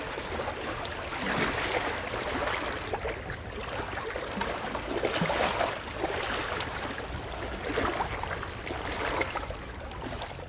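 Sea water lapping and splashing, rising and falling in soft swells every second or two, fading out near the end.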